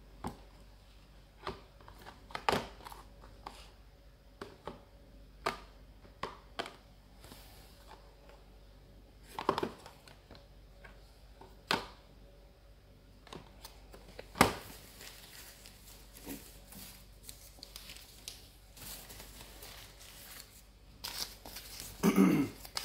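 Cardboard carton of Hot In Cream being handled: scattered clicks, taps and crinkles as the box is turned over in the hands, with a louder bump and rustle near the end.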